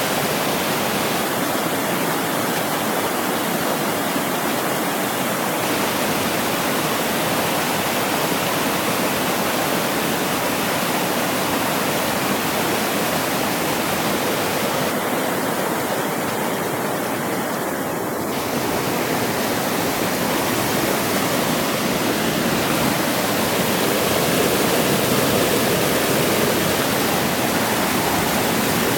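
Fast-flowing mountain creek pouring over a low rocky cascade: a steady rush of whitewater, growing a little louder near the end.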